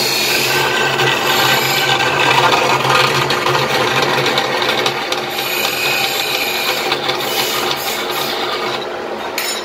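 Vertical band saw cutting through a metal plate fed by hand: a steady motor hum under a continuous rasping of the blade in the metal.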